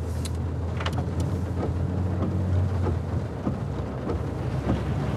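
Steady low rumble of a car heard from inside the cabin, with rain on the car and a few scattered ticks of drops.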